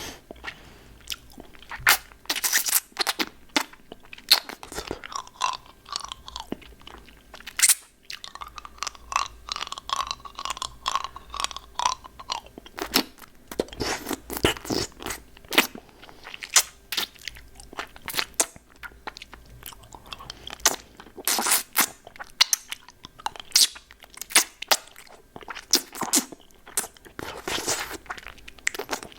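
Hard-candy lollipop being bitten and crunched close to the microphone: a dense run of sharp crunches and wet mouth clicks.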